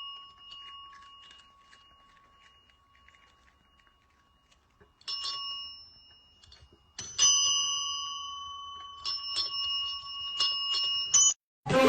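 A small metal bell struck and left ringing: once about five seconds in, again harder at seven seconds, then a quick run of six or so strikes that stops suddenly.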